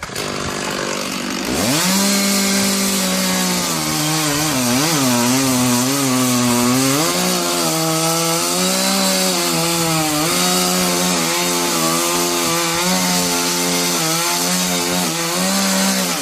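Two-stroke chainsaw revving up about a second and a half in, then running at high revs through wood, its pitch dipping and recovering again and again under the load of the cut. The revs drop away right at the end.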